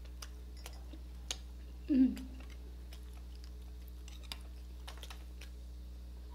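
Close-up eating sounds: a mouthful of grilled chicken intestine (isaw) being chewed, with scattered small wet clicks, and one short pitched mouth sound about two seconds in. A steady low hum runs underneath.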